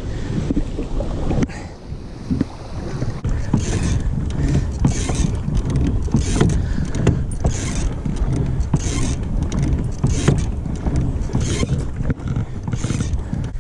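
Kayak paddle strokes splashing in the water about once a second, starting a few seconds in, over a steady low wind rumble on the microphone.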